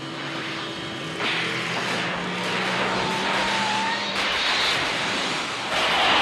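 Film sound effects of the DeLorean time machine speeding up: the car running hard under a crackling electrical buzz, then a sudden loud burst near the end as it vanishes in a flash.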